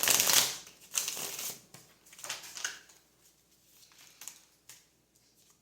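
Tarot cards being shuffled and handled: a loud flurry of papery card riffling in the first second and a half, then lighter rustles and flicks.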